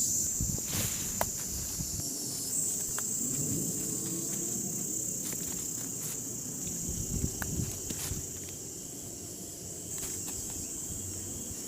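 A steady, high-pitched chorus of insects, such as crickets, with faint low rustling and a few light clicks of movement underneath.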